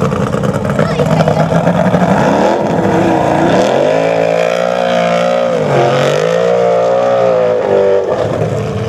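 Suzuki Formula Offroad buggy's engine revving hard under full load on a steep sand climb, its pitch wavering with the throttle and dropping sharply twice, about a third and two-thirds of the way through, before picking up again.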